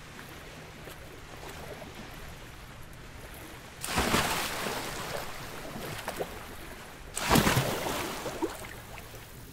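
Quiet sea-water ambience, then a loud splash about four seconds in as a person falls out of a rowboat into the water. A second loud splash follows about three seconds later, and each one fades away over a second or two.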